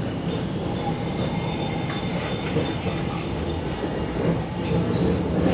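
Tram running along its rails, a steady rumble of wheels and running gear. A few clicks come over the rail joints about two to three seconds in, with a faint high wheel squeal.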